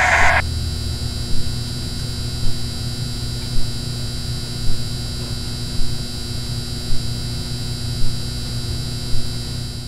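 A steady low droning hum with faint steady high tones over it, swelling in a soft pulse about once a second. A loud hiss cuts off just at the start.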